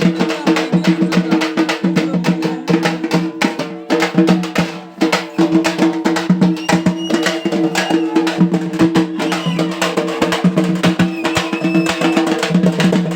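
Loud music with fast, dense drumbeats over steady held tones.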